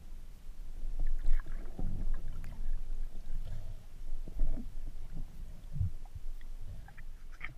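Muffled, irregular low rumbling and knocks of water moving around a camera held underwater, with handling bumps and a few faint clicks.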